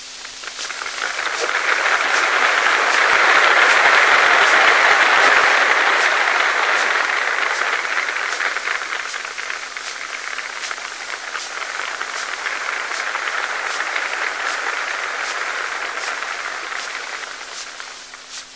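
A vast crowd applauding, swelling over the first few seconds and dying away near the end. It is heard through the crackle and steady hum of a 1942 recording.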